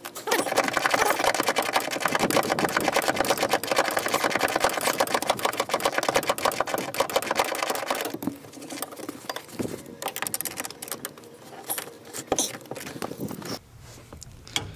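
Ratchet clicking rapidly for about eight seconds as a seat-mounting bolt is worked loose. After that come scattered lighter clicks and knocks of tool on metal.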